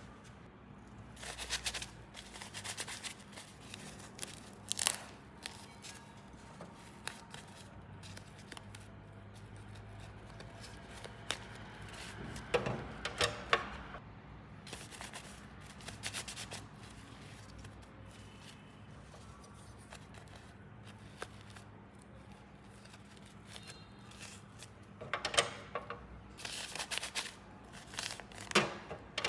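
Small plastic toy pieces being handled: scattered clicks, taps and rustles in a few short flurries, with quieter stretches between and the busiest handling near the end.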